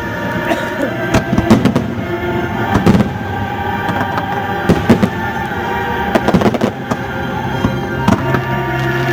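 Fireworks bursting repeatedly in sharp bangs and pops over loud orchestral show music with held chords.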